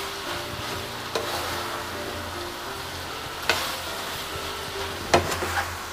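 Jujube berries in sticky jaggery and spice sizzling in a non-stick frying pan as they are stirred with a spatula. A few sharp knocks of the spatula against the pan sound over the steady sizzle, the loudest about three and a half seconds in.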